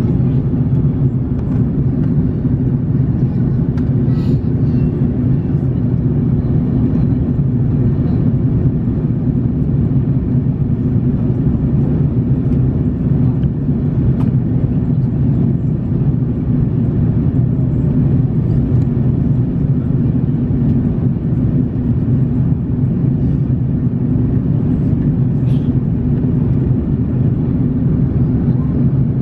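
Steady cabin drone inside an Airbus A330-900neo airliner in flight: engine and airflow noise, deep and even throughout.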